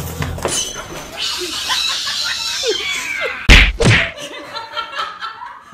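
Two loud thumps about half a second apart, over people's voices.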